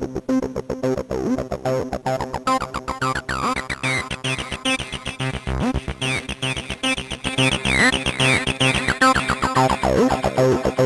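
A 303 acid bass line playing through the TB-303 Distortion Pro plugin's Bitcrusher algorithm, combined with saturation. It is a fast, even run of gritty notes, and bright resonant filter sweeps that rise and fall open up about a third of the way in.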